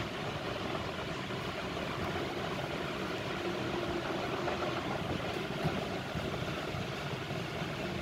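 Steady background rumble, like a constant low hum, with no distinct events.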